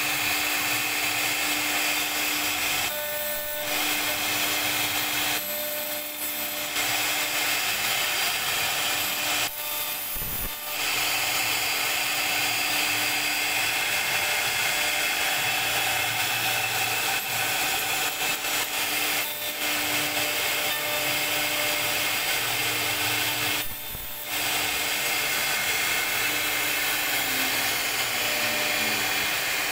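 CNC router spindle running with a steady hum while its bit mills a relief carving into wood, with a continuous rasping cut. The cutting noise drops out briefly about five times.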